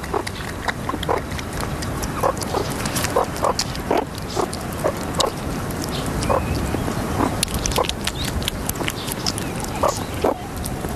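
A meerkat eating from an opened tortoise egg, chewing and licking at it, with many small sharp clicks of cracking eggshell.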